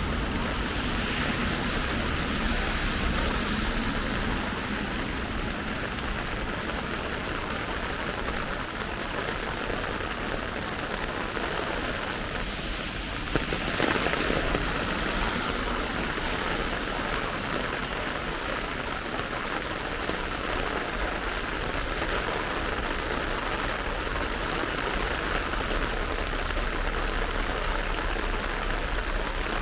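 Steady rain falling and pattering, an even continuous hiss. There is a short louder patch a little before halfway.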